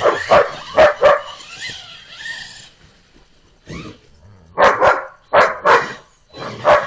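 Dog barking in short, loud barks: a quick run of four in the first second or so, then a lull, then about six more from about four seconds in.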